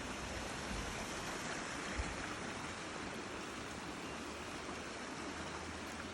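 A small creek running steadily, a constant even rush of water, with one faint low knock about two seconds in.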